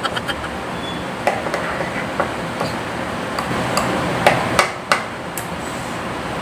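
Metal spoon clinking and scraping against a ceramic bowl while stirring and scooping thick rice porridge: a scatter of light taps, with two louder clinks about four and five seconds in, over a steady background noise.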